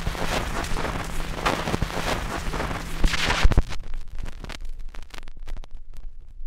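The opening of a rock track on a 1980 record: a sudden loud burst of crackling noise with sharp clicks, held for about three and a half seconds, then fading into sparse clicks as the song's intro begins.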